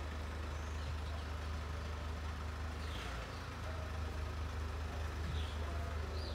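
Steady low-pitched rumble, with a few faint short chirps from about halfway through.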